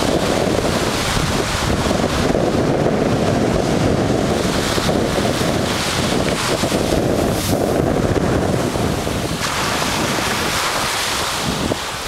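Small shore-break waves on a sand beach, surging and washing up the sand, with wind buffeting the microphone. About nine and a half seconds in the rumble eases and a brighter hiss of foaming wash takes over.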